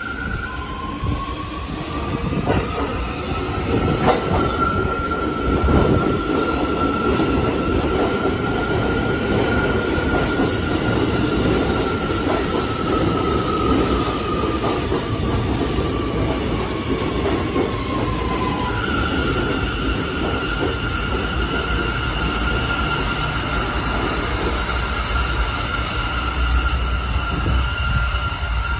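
New York City Subway J train pulling into an underground station, its wheels rumbling on the rails under a high whine that holds and then slides down in pitch as the train slows to a stop about two-thirds of the way in. The standing train then gives off a steady high electrical tone.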